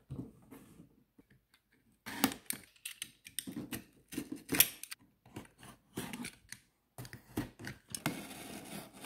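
Utility knife cutting the tape and seams of a cardboard shipping box, a run of short scraping cuts with knocks from the cardboard being handled. From about two seconds in the cuts come in quick strokes, with a longer scrape near the end.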